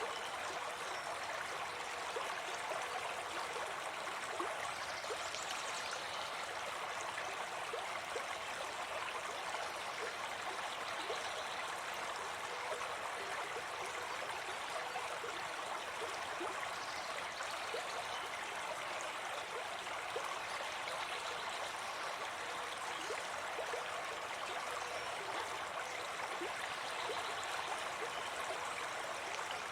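Forest stream running steadily, an even, unbroken rush of flowing water.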